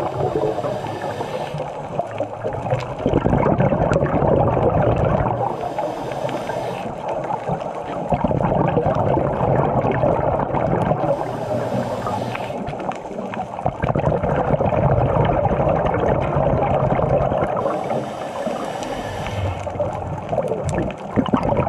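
Scuba diver breathing through a regulator underwater: a hiss about every six seconds, four in all, with bubbling and gurgling in between.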